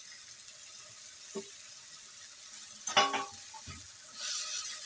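Spices and ground amla paste frying in ghee in a pan, a steady sizzle, with one sharp clank of a utensil against the pan about three seconds in; the sizzle grows louder near the end.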